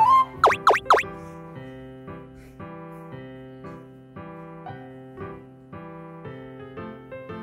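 Three quick, sharp swishing effects in the first second, then light electric-piano background music with even, steady chords.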